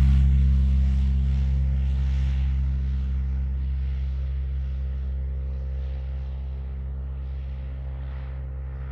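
Electric motor and propeller of a Pipistrel Taurus Electro self-launching glider running at takeoff power, a steady low drone whose pitch holds constant as it fades gradually while the glider climbs away.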